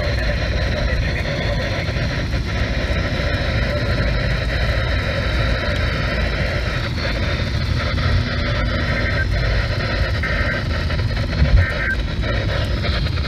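Steady low rumble with a hiss over it, the road and engine noise heard inside a moving car's cabin, with one short thump near the end.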